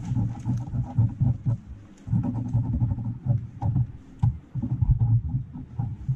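Graphite pencil scribbling and hatching on sketchbook paper, heard as a run of irregular, low rubbing strokes with short clicks between them.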